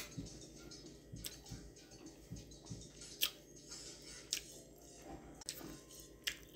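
A person chewing a mouthful of food close to the microphone, with about five sharp clicks scattered through.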